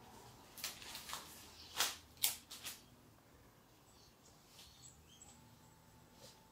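Cut flower stems and foliage being handled and pushed into a vase: a few short rustles and clicks over the first three seconds, the loudest about two seconds in, then quieter.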